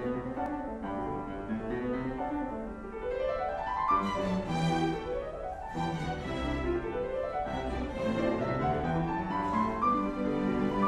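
Steinway concert grand piano playing classical music with a string orchestra of violins, the music climbing in repeated rising runs.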